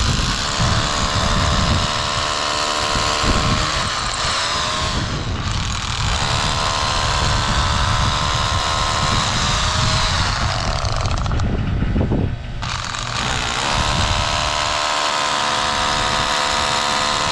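Milwaukee SDS-Plus rotary hammer drilling a 3/8-inch hole into brick with a concrete bit: the motor whine and hammering run in three stretches, with a short break about five seconds in and another around eleven to twelve seconds.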